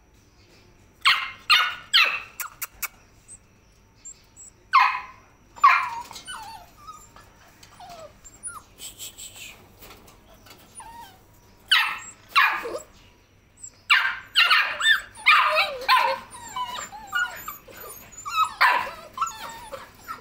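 Labrador Retriever puppies giving high-pitched yips, barks and whines in several bursts with short pauses between them.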